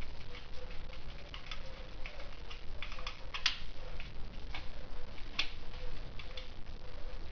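Irregular light clicks and taps of hand work on parts, with two sharper clicks about halfway through and again near the end.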